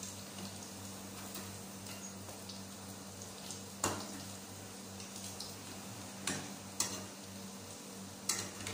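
Chicken nuggets deep-frying in hot oil in a kadai, a steady sizzle, with a few sharp clinks of a metal slotted spoon against the pan as the pieces are turned.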